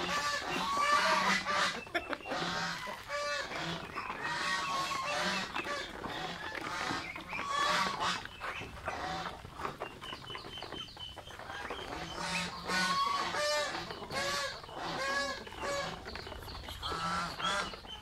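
Mixed farmyard flock of geese, ducks and chickens calling: a busy run of short, repeated honks and squawks, several a second, overlapping one another.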